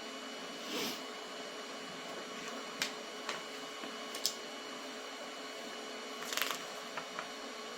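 Faint steady hum with a few thin steady tones, typical of a powered-on FDM 3D printer idling. Several light, sharp clicks and two brief rustles of handling break it.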